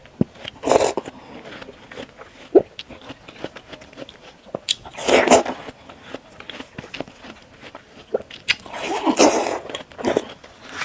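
Bites into sticks of watermelon flesh: three crisp, juicy crunches about one, five and nine seconds in, with chewing and small wet mouth clicks between.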